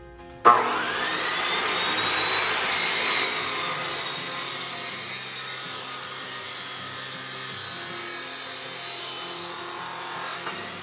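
Abrasive chop saw starting up about half a second in, its motor whine rising in pitch as the disc spins up, then the cut-off wheel grinding steadily through a metal closet hanger rod, throwing sparks.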